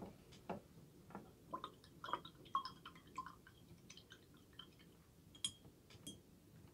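Faint handling sounds of a strip of small plastic craft-paint pots and a brush: scattered light clicks and taps, with a few short squeaks in the middle and a sharper tick about five and a half seconds in.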